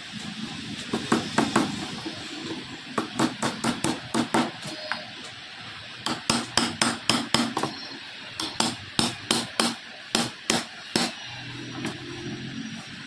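Repeated sharp wooden taps from a rough stick used as a mallet, knocking against a glued wooden frame. The taps come in quick runs of several strokes and stop near the end.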